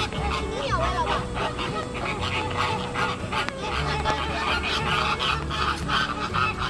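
Many American flamingos in a colony keep up a chorus of short, goose-like honks, over background waltz music.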